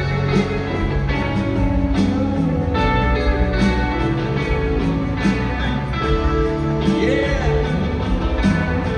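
Live rock band playing: electric guitar, bass and drums, recorded on a phone from the arena crowd.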